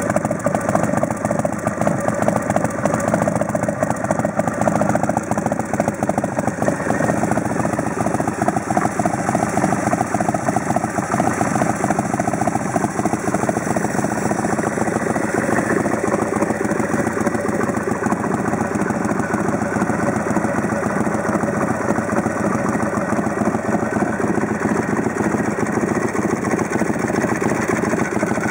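2005 BMC custom chopper's air-cooled V-twin engine idling steadily.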